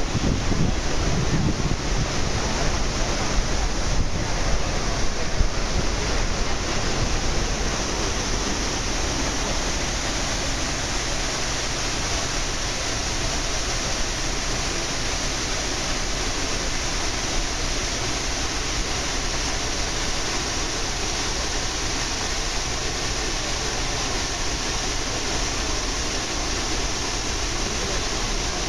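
Steady rushing noise of water and wind aboard a moving boat, with uneven wind buffeting on the microphone in the first few seconds.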